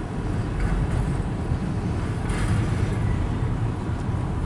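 Mixed freight train's cars rolling past a grade crossing: a steady low rumble, heard from inside a stopped car, with a brief swell of hissing noise about halfway through.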